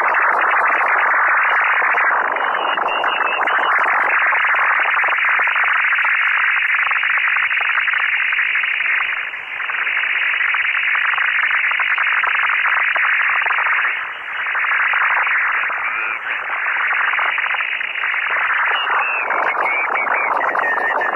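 Unidentified strange signal on the 10 meter amateur band, heard through an HF transceiver's receiver: a loud, dense, hiss-like din that dips briefly twice, about nine and fourteen seconds in.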